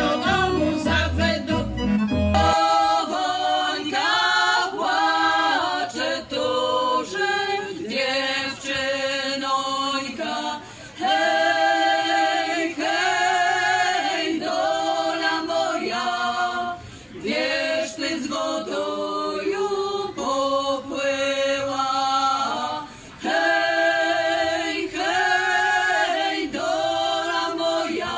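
Women's folk choir singing a traditional village song unaccompanied, in multi-voice harmony, as long held phrases with short breaks between them. The first couple of seconds hold the tail of an accordion-accompanied song with a steady bass beat, which then cuts off.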